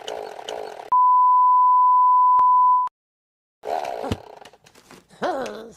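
A loud, steady 1 kHz bleep tone held for about two seconds and cut off abruptly, coming right after a brief stretch of an edited loop that repeats about three times a second. After a short dead-silent gap, a few short clipped sounds with sliding, voice-like pitch follow near the end.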